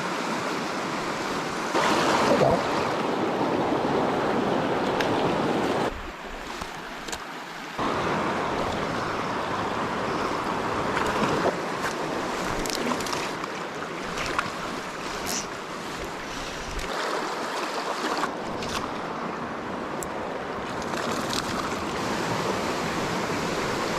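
Creek water rushing and washing steadily, with abrupt dips in level about six seconds in and again near seventeen seconds.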